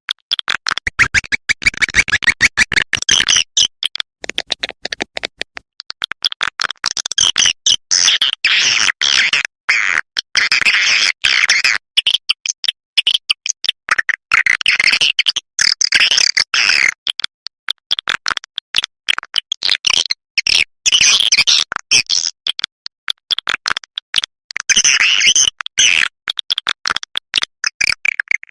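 Swiftlet call track: edible-nest swiftlets' rapid clicking chatter and buzzy twitters, coming in bursts of a few seconds with short gaps between them. The track is played to lure swiftlets to a nesting house.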